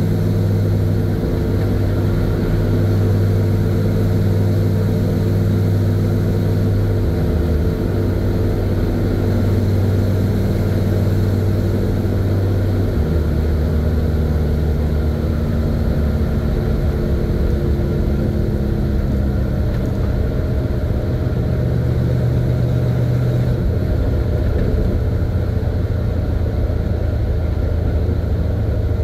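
A 1970 Chevy C50 dump truck's engine running steadily under way, heard from the cab, with road noise; the engine note shifts to a new pitch a few times.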